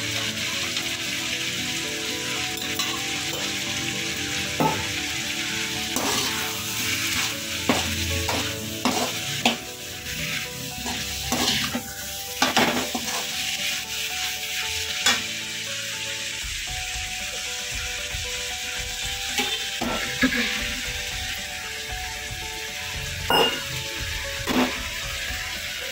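Chopped capsicum and potato sizzling in oil in a metal kadai while a perforated metal spatula stirs and tosses them, scraping and clinking against the pan. The clinks come thickest in the middle, with a few sharper metal clinks near the end.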